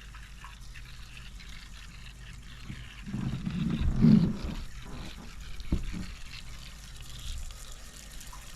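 Vacuum oil extractor sucking the last of the engine oil up a thin tube from the dipstick hole, with a faint steady hiss and a louder gurgling burble about three to four seconds in as air and oil slurp through together: the sump is nearly empty. There is a single short knock near the middle.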